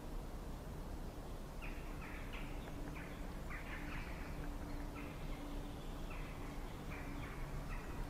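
Middle spotted woodpecker chopping into wood to dig out its nest hole: short, sharp, irregular pecks, roughly two a second, starting about a second and a half in, over steady background noise.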